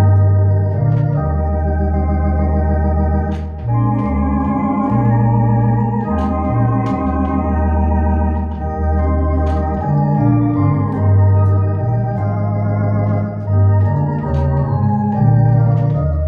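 Yahalom electronic organ playing slow sustained chords with vibrato over deep pedal bass notes that change every second or two, with thin clicks here and there.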